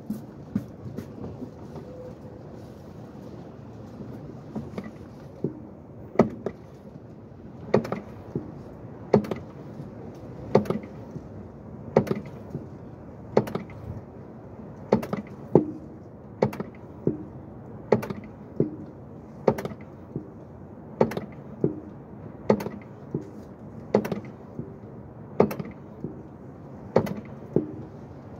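Clutch pedal being pumped repeatedly to bleed a newly fitted clutch master cylinder: sharp clicking knocks from the pedal and master cylinder, settling about six seconds in into a steady rhythm of one every one and a half seconds or so, with softer knocks between.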